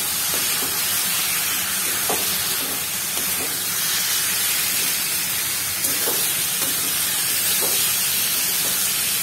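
Raw banana pieces and masala sizzling in hot oil in a metal kadhai, with a steady hiss, while a metal spatula stirs them and now and then scrapes the pan.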